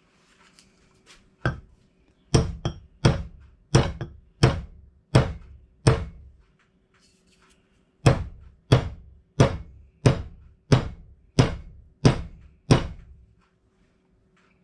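Repeated wooden thunks of hammering on a claw hammer being re-hung on a hickory handle, driving the metal wedge in to spread the handle's end and lock the head on. The strikes come steadily, about one every two-thirds of a second, in two runs with a pause of about two seconds between.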